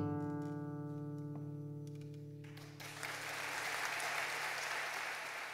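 Acoustic guitar's closing chord ringing out and fading, ending the milonga. About two and a half seconds in, audience applause breaks out and continues.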